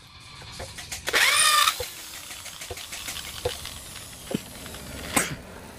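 Corded electric drill spinning up with a rising whine about a second in, then running as the bit bores into the wooden chair frame, with a brief louder burst near the end.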